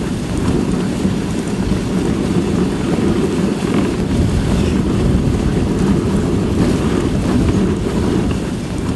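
Wind rushing over the microphone on a moving dog sled, a steady low rumble.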